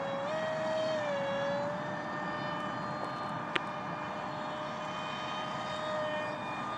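Power Up 450 brushless outrunner motor spinning an APC 6x4 propeller on a foam RC jet, giving a steady whine in flight. Its pitch rises briefly about half a second in and settles back down a second later. A single sharp click comes about three and a half seconds in.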